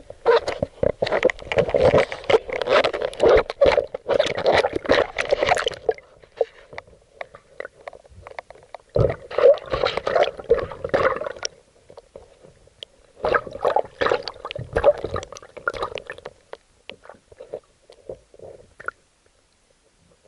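Bathwater sloshing and splashing in a baby bath, heard muffled and gurgling through a camera in a waterproof case at or under the water. It comes in three long bursts and dies away near the end.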